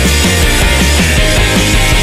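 Loud rock music soundtrack with a steady beat.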